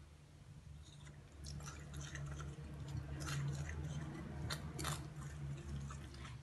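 Fingers rubbing and crumbling flour with egg and olive oil in a bowl, giving soft, crackly scrunching strokes that start about a second and a half in, over a low steady hum.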